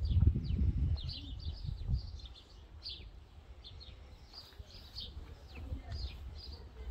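Small birds chirping and singing in short, repeated high notes, over a low rumble that is loud at first and fades away after about two seconds.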